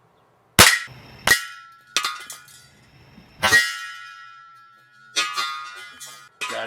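Hollow steel clangs, four sharp strikes each ringing on, followed by a rattling clatter near the end, typical of empty propane cylinders being hit.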